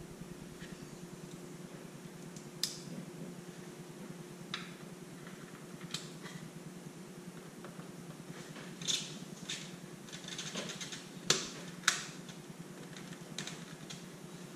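Scattered small clicks and taps of metal mounting hardware and brackets being handled and fitted, irregular, with the two sharpest clicks close together about two-thirds of the way through. A steady low hum runs underneath.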